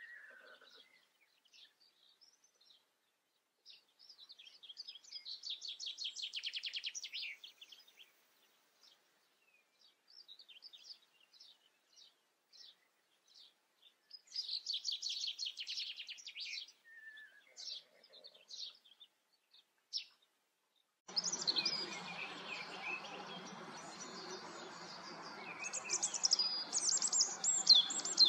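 Songbirds singing: scattered high chirps and two fast trills of rapidly repeated notes. About two-thirds of the way in, a steady background hiss of outdoor ambience comes in, with louder bird calls near the end.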